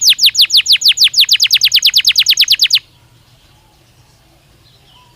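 Canary singing a fast trill of identical down-sweeping notes, about nine a second, that breaks off abruptly a little past halfway, leaving faint background hiss.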